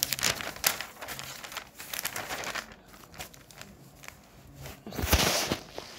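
Notebook paper pages being turned and handled, crinkling and rustling for the first couple of seconds. A louder rustle of paper comes about five seconds in.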